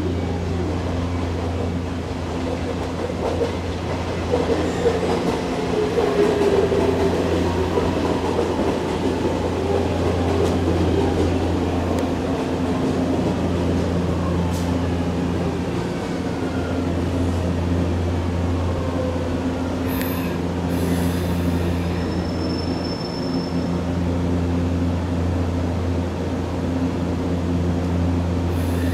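Steady electrical hum of a stationary E257 series 5000 electric train at the platform, with a whine that slides in pitch and swells then fades between about four and twelve seconds in.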